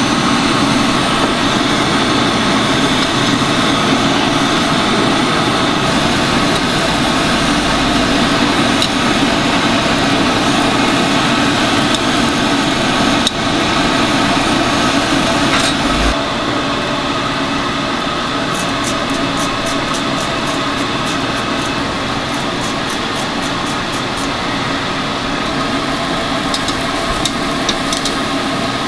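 Steady mechanical whirring hum from running machinery, easing slightly about halfway, with a run of light, fairly regular ticks in the second half.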